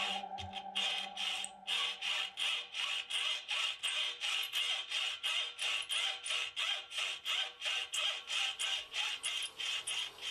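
Hacksaw cutting through a metal bar clamped in a vise, in quick even strokes, about three or four a second.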